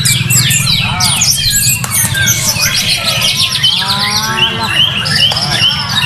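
White-rumped shamas singing in competition cages, several songs overlapping: rapid repeated whistles and trills, with some lower looping notes, over a steady low hum.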